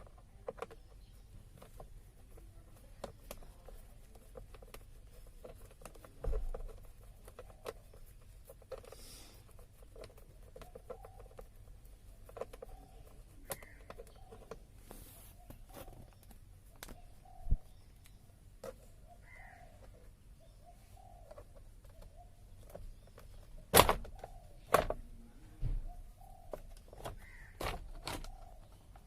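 A bird calling over and over in the background, with scattered clicks and several sharp knocks, the loudest about three-quarters of the way through.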